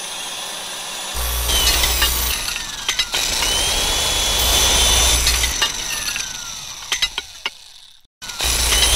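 Circular saw cutting through metal restraints: the blade whines steadily as it bites in, with a low hum during the heaviest cutting. Its pitch falls as it winds down, it cuts out briefly, then starts up again near the end.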